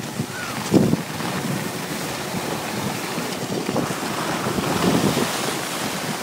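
Wind buffeting the microphone while moving downhill on skis, with the hiss and scrape of skis on packed snow. There is a single thump about a second in, and the rushing swells louder near the end.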